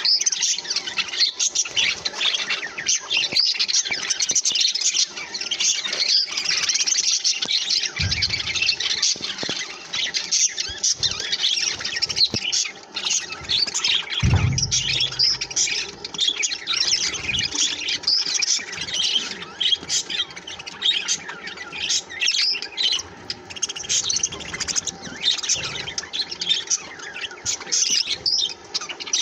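A group of budgerigars chirping, chattering and squawking together without a break. There are two dull low thumps, about eight and fourteen seconds in.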